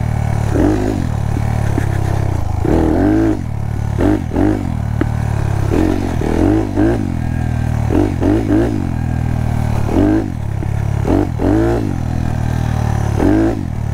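Honda Monkey's single-cylinder four-stroke engine, bored out to 181cc, running under a rider on a sandy trail. The revs rise and fall again every second or so as the throttle is worked.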